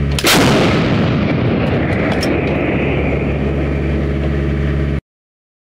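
A towed howitzer firing a single round: one sharp, loud blast about a quarter second in, followed by a long echoing decay that is cut off abruptly near the end.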